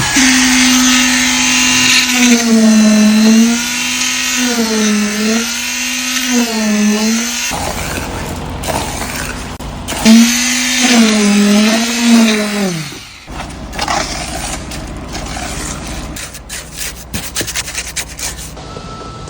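Electric concrete vibrator motor running with a steady whine whose pitch dips again and again as it loads up. It stops about seven seconds in, starts again at about ten seconds and winds down about thirteen seconds in, followed by scattered knocks.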